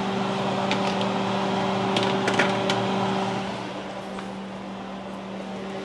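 Diced onions sizzling in a little oil in a nonstick pot, with a spatula clicking against the pot a few times in the first three seconds. A steady electric hum runs underneath.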